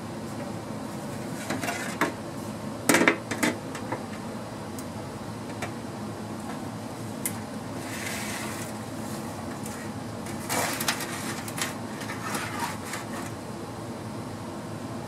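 A shallow homemade chip tray cut from old shelving, holding metal chips, being handled and set down under a mini lathe: a few sharp knocks and clatter, the loudest about three seconds in, a short sliding scrape about eight seconds in as it is pushed into place, and more light clatter around eleven seconds. A steady background hum runs underneath.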